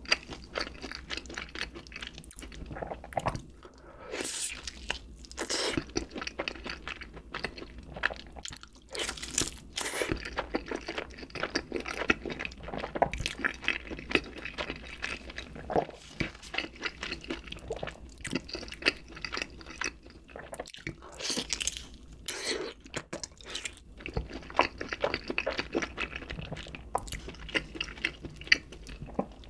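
Close-miked chewing and biting of crunchy food, a dense run of crackling crunches with a few louder bites.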